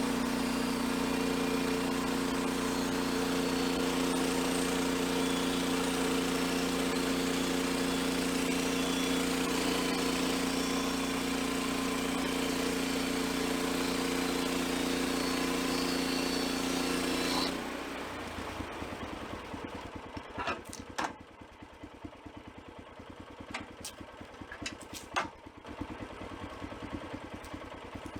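Portable band sawmill's gas engine running steadily at high throttle, then dropping off sharply about seventeen seconds in to a quieter low idle. A few sharp knocks and clatters follow.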